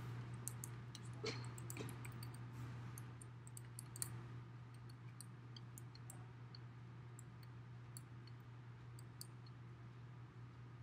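Small paint roller being rolled through paint on roofing tar paper, giving scattered faint clicks and ticks, densest in the first few seconds, over a steady low room hum.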